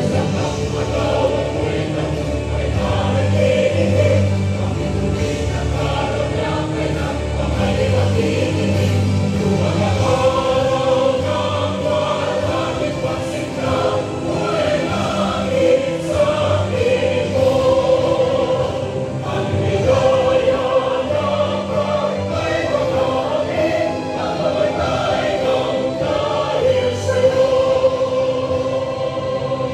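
A choir singing with instrumental accompaniment, a slow, steady patriotic song.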